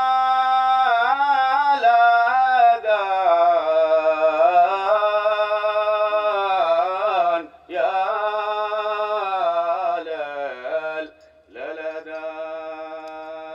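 A single male voice singing a Hadhrami dan melody in long held notes with ornamented bends, in three phrases with short breaks between them; the last phrase is softer.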